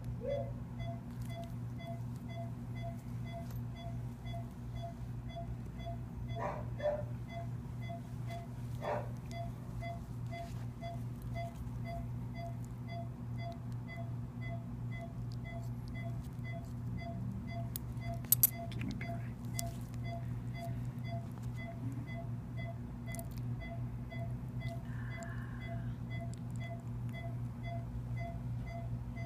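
Veterinary anaesthesia monitor beeping steadily about twice a second, pacing the anaesthetised cat's heartbeat, over a steady electrical hum.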